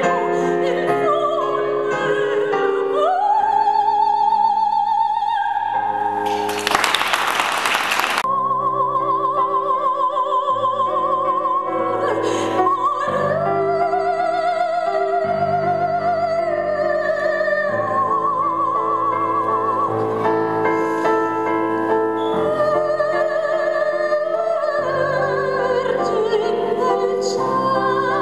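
A woman singing long held notes with a wide vibrato into a microphone, accompanied by chords on a digital piano. About seven seconds in, a burst of hiss cuts across the music for a second and a half.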